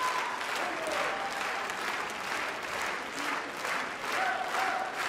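A large theatre audience applauding: a dense, steady ovation of many hands clapping.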